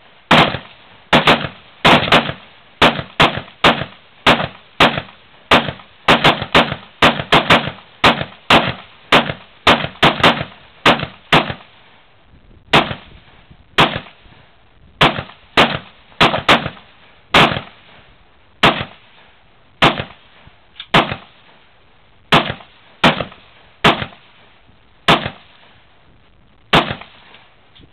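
Rapid rifle fire from several L98A2 cadet rifles (5.56 mm, cocked by hand between shots) on a firing line. Dozens of sharp, irregularly spaced shots, some close together or overlapping, come thick for the first twelve seconds or so and then thin out to about one every second or two.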